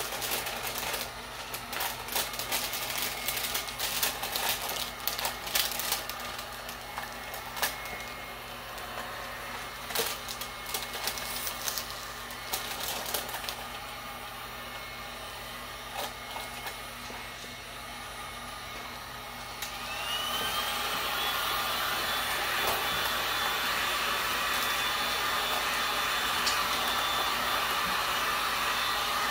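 Handheld electric heat gun blowing steadily while it shrinks a plastic shrink-wrap sleeve onto a dog bowl, with many sharp crackles over the first two-thirds. About twenty seconds in it gets louder, its motor whine rising in pitch and then holding steady.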